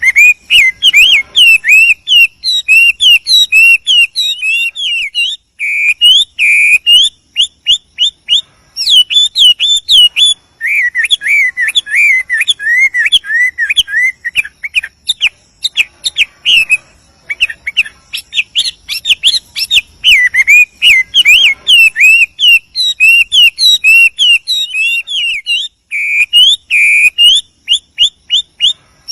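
Chinese hwamei singing a long, fast, varied run of clear whistled phrases, with only brief breaks between runs.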